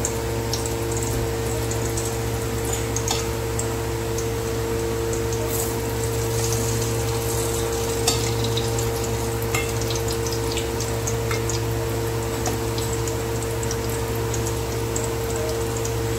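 Ghee melting in a hot aluminium pot with a faint sizzle and scattered crackles, and a metal spoon scraping and tapping as more ghee is added. A steady low hum runs underneath.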